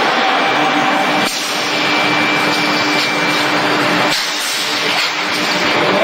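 Forging-line machinery running: a dense, steady hiss with a constant hum, changing abruptly about a second in and again about four seconds in.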